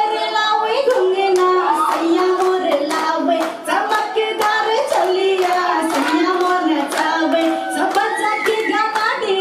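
A Tharu song with a singing voice over a steady beat, and hands clapping along in time.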